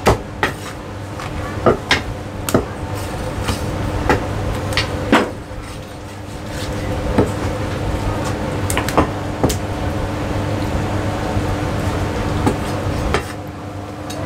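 Chinese cleaver chopping roast goose on a thick round wooden chopping block: sharp knocks at irregular intervals, several in the first five seconds and fewer after. A steady hum runs underneath.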